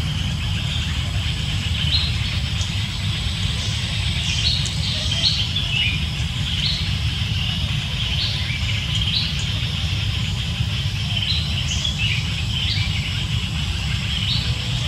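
Outdoor ambience: birds chirping in short calls about once a second over a constant high hiss and a steady low rumble.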